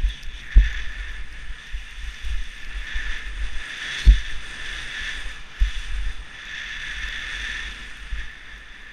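Skis hissing and scraping over groomed snow in swelling turns, with wind rumbling on the microphone and three sharp low thumps.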